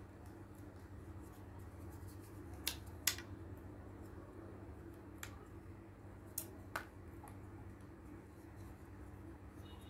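Sharp clicks and snaps of die-cut cardboard pieces being pushed out of their sheet and handled, coming in two close pairs a few seconds apart with a single click between, over a steady low hum.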